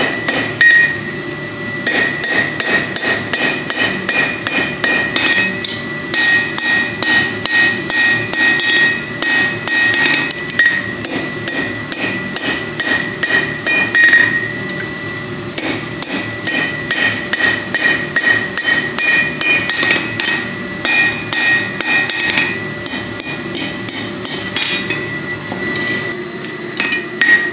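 Blacksmith's hand hammer striking red-hot steel on an anvil in fast runs of blows, several a second, with the anvil ringing at a high steady pitch and short pauses between runs. The steel is being flattened and worked round into the head of a forged bottle opener.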